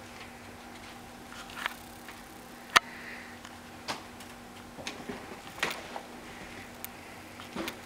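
Scattered light taps and rustles with a sharp click about three seconds in, from a Siamese kitten playing with a Da Bird feather wand toy.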